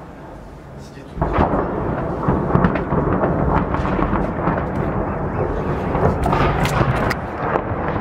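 Multiple-rocket-launcher shelling from a BM-27 Uragan: a long rolling rumble that starts suddenly about a second in and runs on, crackling with many overlapping rocket blasts.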